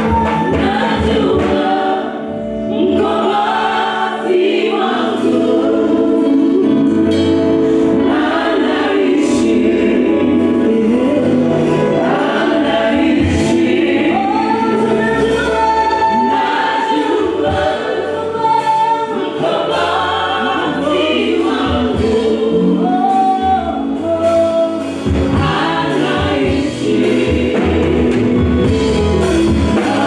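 Gospel choir of men and women singing at microphones with band accompaniment, including an electric guitar.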